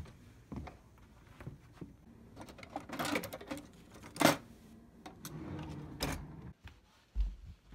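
Rummaging in a kitchen utensil drawer: scattered clicks and clatter of tools being moved, with one sharp clack about four seconds in.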